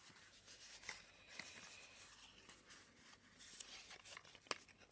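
Faint rustling and creasing of white cardstock being folded by hand along scored lines, with small clicks and one sharper click about four and a half seconds in.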